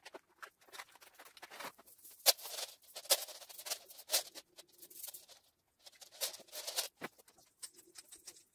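Gold bead garland clicking and rattling and artificial tree branches rustling as the strand is handled and draped over the tree, with irregular sharp clicks, the loudest a little over two seconds in.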